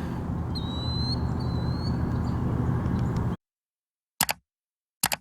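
Steady rumble of distant highway traffic with a bird's single thin whistled note about half a second in; the sound cuts off abruptly about three seconds in, followed by two short sharp clicks in silence.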